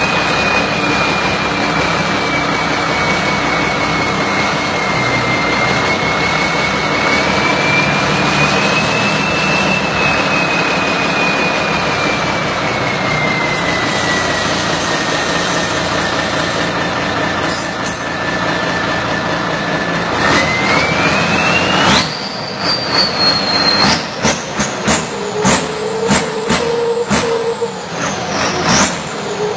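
Rice combine harvester's engine running with a loud, howling high whine that drifts slowly lower, then climbs sharply about twenty seconds in. In the last few seconds the sound turns choppy, with many sharp clicks and an uneven level.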